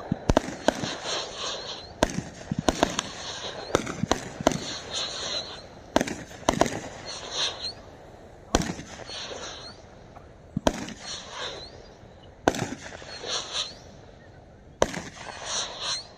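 A 36-shot consumer fireworks cake (Brothers Oktoberfest) firing shot after shot. Its sharp reports come fast at first and then about every two seconds, and many are followed by a short fizz.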